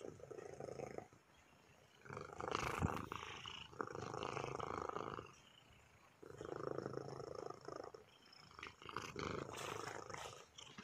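Domestic cat purring close to the microphone, in stretches of about a second or so with short gaps between.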